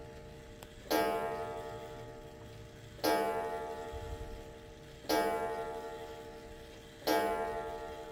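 1920s Kienzle oak pendulum wall clock striking the hour of eight on its coiled wire gong: single hammer blows about two seconds apart, four in this stretch. Each blow rings and dies away slowly before the next.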